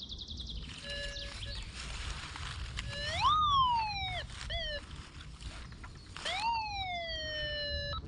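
Metal detector target tone. A short steady beep about a second in is followed by two long tones that sweep up in pitch and slide back down, with a brief blip between them, as the coil passes over a buried metal target.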